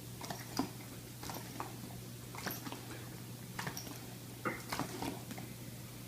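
Wet mouth sounds from a dog: irregular soft smacks and clicks, a few a second, over a steady low hum.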